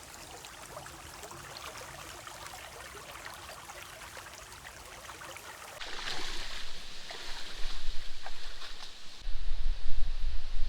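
Water trickling and babbling faintly in a drainage canal. About six seconds in it turns abruptly to a louder rush of water, and near the end strong wind buffets the microphone.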